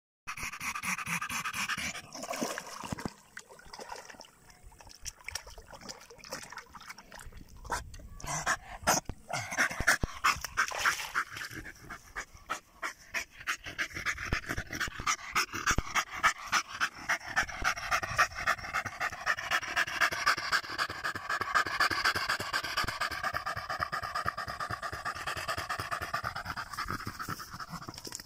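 German Jagdterrier panting hard and fast with its tongue out, cooling itself in heavy heat.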